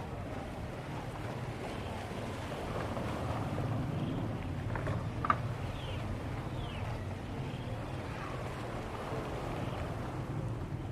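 Outdoor waterside ambience: a steady low rumble with wind on the microphone, and a single sharp click about five seconds in.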